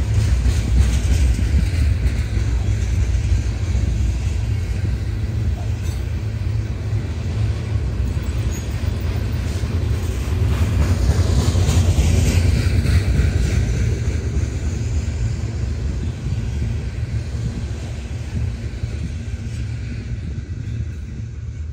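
Freight train of BNSF open-top hopper cars rolling past: a steady rumble of steel wheels on rail, fading over the last few seconds as the end of the train goes by.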